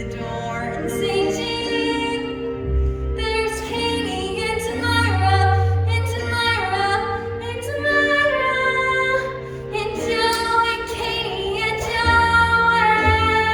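A girl singing long held notes of a show tune over a musical accompaniment.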